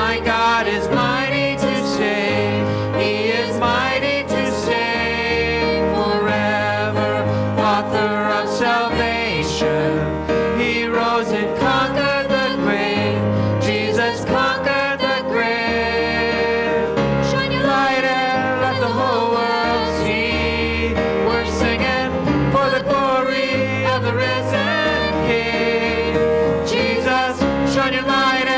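Live worship song: several voices singing together into microphones, with keyboard accompaniment and a low bass line under them.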